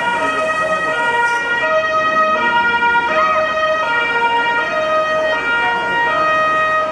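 Two-tone emergency vehicle siren, alternating between a high and a low note about every three-quarters of a second, with a crowd's murmur beneath; the pattern of a European hi-lo siren responding to the building fire.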